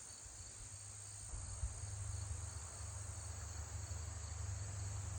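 A steady, high chorus of insects in the woods, with a low rumble underneath that grows louder about a second in.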